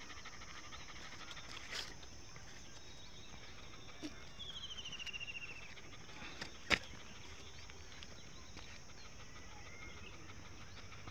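Dog panting quietly, mouth open and tongue out. A short falling trill sounds in the middle, and a sharp click about two-thirds through is the loudest sound.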